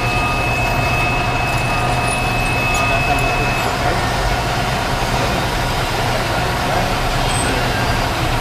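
Metal lathe running steadily while turning a bevel on a steel pipe end, with a steady hum and a high, thin tone that stops about three and a half seconds in.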